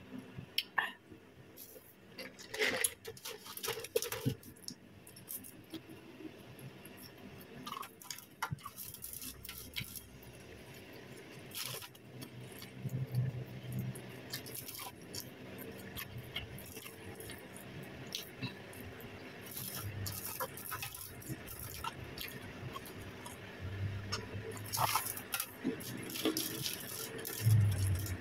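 Eating sounds: scattered crinkles and clicks of aluminium foil as french fries are picked up off it, with soft chewing.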